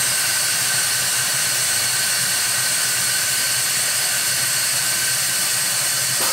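Coffee bean lift running, drawing roasted beans out of the hopper up its stainless tube to the filler, with a steady rushing hiss and a high whine. It cuts off suddenly at the very end, the end of one lift cycle.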